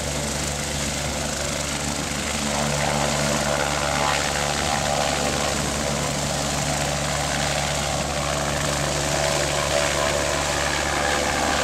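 BK 117 twin-turbine medical helicopter lifting off from a hover and climbing away: steady rotor and turbine noise, growing a little louder about three seconds in.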